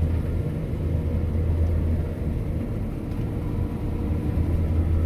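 Combine harvester running steadily while reaping barley, a constant low drone with no change in pitch.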